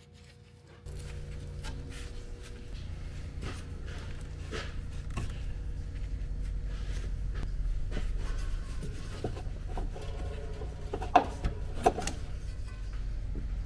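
Hand tools and loose parts being worked on a Jeep Cherokee: scattered clicks, knocks and rubbing, with two sharper clacks near the end. A steady low hum runs underneath, coming on about a second in.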